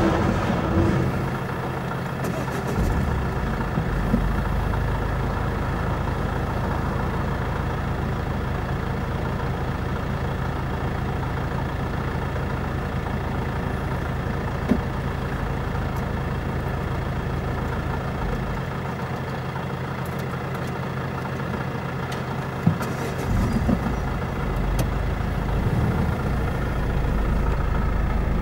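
Vehicle engine idling steadily at a low hum. The rumble of a freight train's last wagons dies away in the first second or two, and a few single clicks come later.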